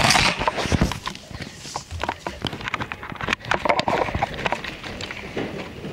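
Irregular light taps and knocks with rustling: the handling noise of small plastic toy figurines and the camera being moved.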